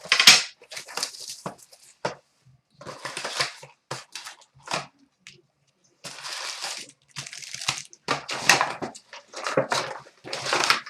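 Trading card packaging being torn open and crinkled, heard as irregular bursts of crinkling and tearing plastic wrap.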